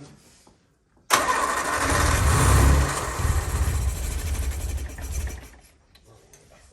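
Classic Mini's BMC A-series engine cranked and starting, coming in suddenly about a second in, running roughly with a pulsing low rumble, then fading away about five seconds in.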